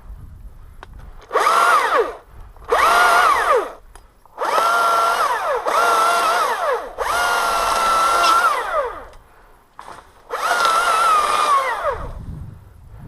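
Chainsaw throttled up six times in short bursts, each whine climbing to full speed, holding briefly, then dropping back, as limbs are cut.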